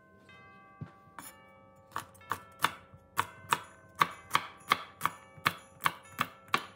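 Chef's knife chopping green beans on a wooden cutting board: sharp knocks about three a second, starting about two seconds in.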